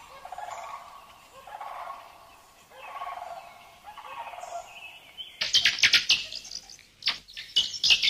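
Short bird-like calls repeating about once a second, then, about five seconds in, a rapid run of sharp, high squeaks and clicks from guinea pigs crowding a food bowl.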